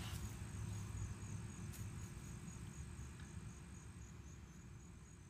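Crickets chirping faintly in a steady, evenly pulsing trill over a low rumble, the whole slowly fading. A faint click about two seconds in.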